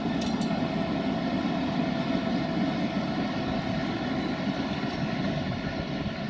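Siemens Vectron electric locomotive approaching with its intermodal container train: a steady drone with several held whine tones over a low rolling rumble. Two sharp clicks come about half a second in.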